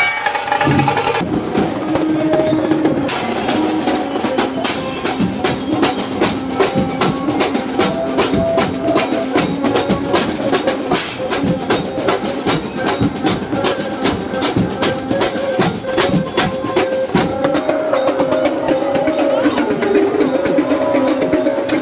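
Street procession band playing for a Ganesh idol's arrival: fast, continuous drumming with a tune carried over it, stepping up and down.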